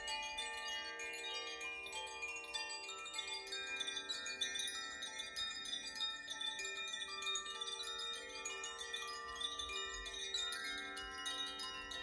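Koshi and Zaphir chimes swung by hand, their clappers striking the tuned rods inside. Many bell-like tones start at different moments and ring on over one another without a break.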